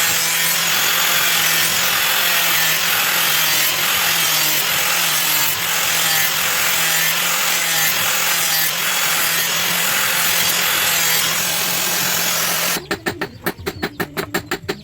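Power tool abrading the work continuously, with a steady motor hum under a harsh rasping noise. About thirteen seconds in it cuts off suddenly and is replaced by a fast, even pulsing of about seven strokes a second.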